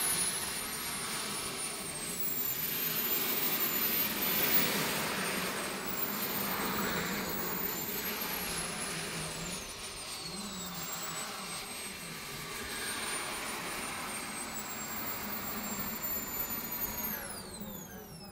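Small turbine engine of an RC Elite Aerosports Havoc model jet running: a high whine that glides up and down in pitch over a rushing noise. The whine falls away steeply near the end.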